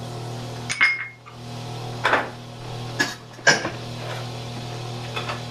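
Metal kitchenware being handled on a counter: a stainless steel mixing bowl and tongs knocking and clinking four times, the first knock with a short metallic ring. A fan hums steadily underneath.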